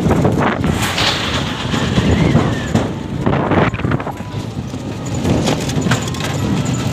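Wind buffeting the microphone over the rumble and knocking rattles of a battery e-rickshaw (toto) jolting along a rough dirt and concrete road.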